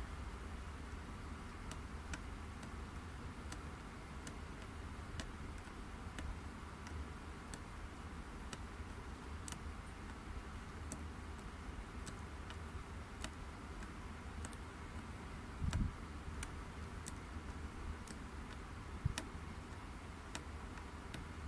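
Faint, regular high ticking, about once a second, over a steady low hum, with a brief low thump about two-thirds of the way through.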